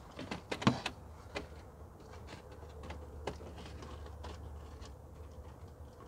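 Plastic air filter housing being set down over a drop-in air filter and pressed onto its base: a cluster of plastic knocks and clicks in the first second, then scattered lighter clicks as it is seated.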